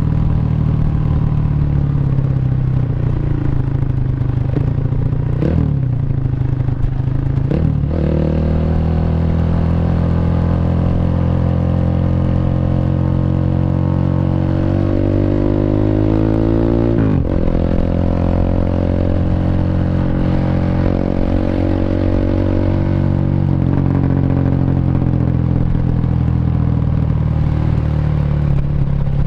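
Honda Revo motorcycle's single-cylinder four-stroke engine, bored up to 150cc and breathing through a CLD C7 aftermarket exhaust, under way: it shifts up about five and eight seconds in, rises steadily in pitch for several seconds as it accelerates, shifts again about halfway through, then holds a steady cruise.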